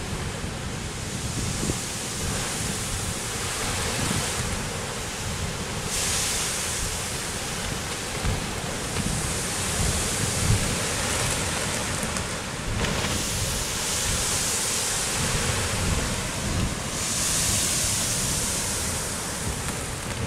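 Steady rushing noise of surf and steam where a lava stream pours into the sea, with wind buffeting the microphone. The high hiss swells up and dies back several times over a low rumble.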